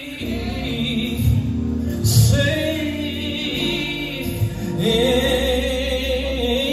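Live gospel singing: voices from a soloist and backing singers hold long notes between lines of the lyric, over steady low accompaniment.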